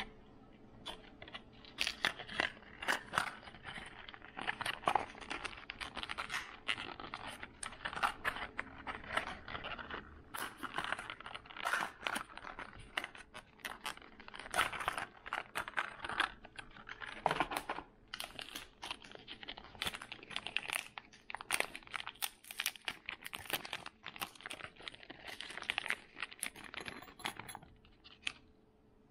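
Packaging being handled: crinkling and rustling with many light clicks and taps. It stops about a second before the end.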